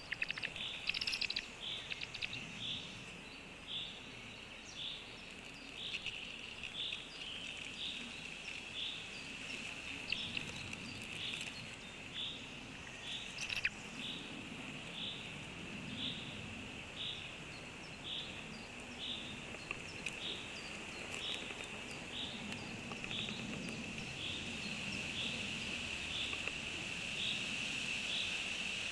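Outdoor ambience of a steady high insect-like buzz, with a short chirp repeated evenly about one and a half times a second.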